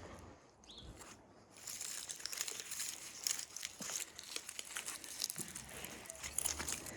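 Dry, brittle crackling and crinkling of dead birch bark and twigs breaking and rubbing, a dense run of irregular sharp ticks that starts about a second and a half in.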